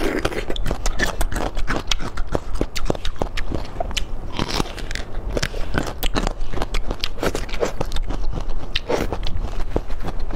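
Biting and chewing a whole sauce-coated bamboo shoot, which is crisp and tender: a dense, irregular run of crunching and sharp crackles.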